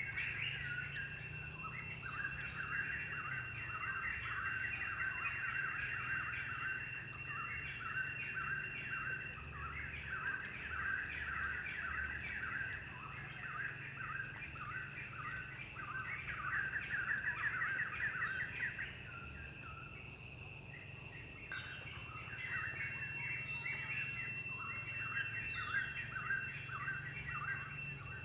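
Forest ambience: a steady high-pitched insect drone with rapid, repeating trains of chirping calls over it. The chirping drops out for a few seconds past the middle and then returns.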